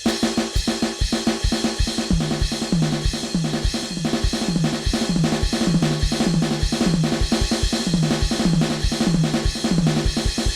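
Turbo Eletronic TDX-16 electronic drum kit played in a fast, steady groove of kick, snare, hi-hat and cymbal hits, heard through the module's output. A low repeating bass line joins about two seconds in.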